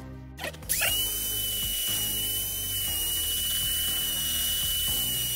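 Small handheld high-speed rotary tool starting a little under a second in, spinning up quickly to a steady high whine, sanding the foam built up on a motorcycle boot's toe cap.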